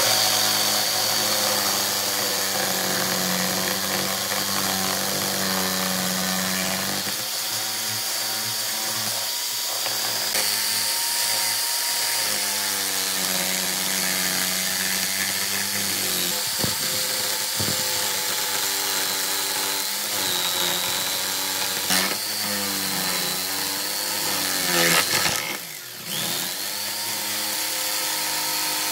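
Electric power tool running on wood for the whole stretch. Its motor whine wavers up and down in pitch as the load changes, with a short break about three quarters of the way through.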